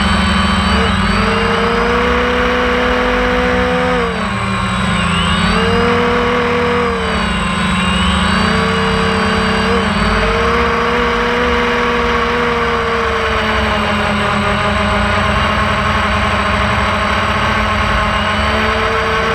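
DJI Phantom 1 quadcopter's electric motors and propellers whining in flight, heard up close from a camera mounted on the drone. The pitch drops and climbs back several times as it manoeuvres.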